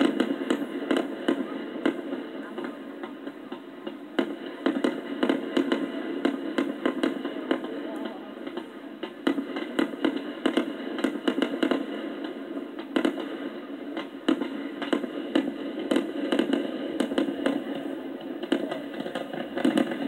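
Fireworks shells bursting in quick succession, several bangs and crackles a second over a continuous rumble. It sounds thin, played back from a recording on a computer.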